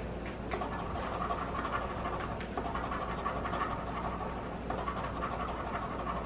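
Scratch-off lottery ticket being scratched, its coating rubbed off in quick strokes. It comes in three runs, with short pauses about two and a half and four and a half seconds in.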